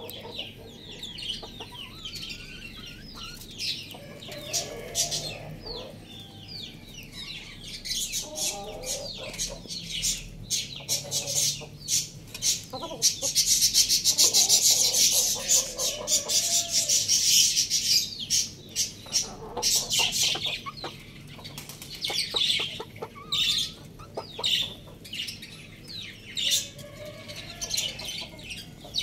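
Chickens feeding: soft clucks among many quick, sharp pecking taps. A louder rustle runs for a few seconds midway.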